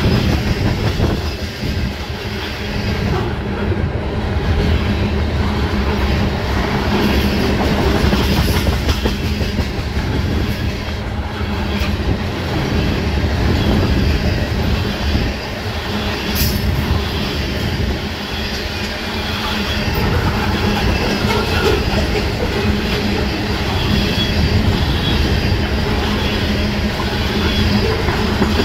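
Freight train of tank cars rolling steadily past at close range: a continuous rumble of steel wheels on the rails.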